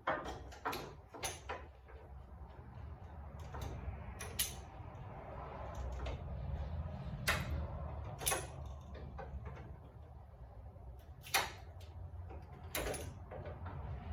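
Hammer blows on the sheet metal of a Dodge Dakota's hood, beating out a dent: about eight sharp metallic strikes at irregular intervals, over a steady low hum.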